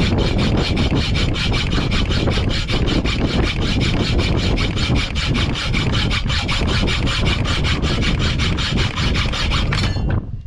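Hacksaw cutting with rapid, even back-and-forth strokes that stop about ten seconds in.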